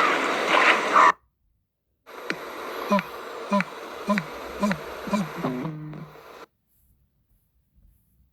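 Sound-designed Mapusaurus (theropod dinosaur) calls. A loud, noisy call cuts off suddenly about a second in. After a short silence comes a run of about six short low calls, each falling in pitch, under two a second over a hiss, ending in a brief held low tone. Then near silence.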